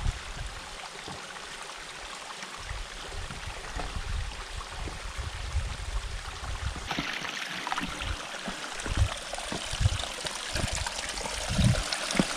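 Shallow stream trickling and running over the rocks of a stream-bed trail, a steady rush that grows louder about seven seconds in. Occasional low thumps sound under the water.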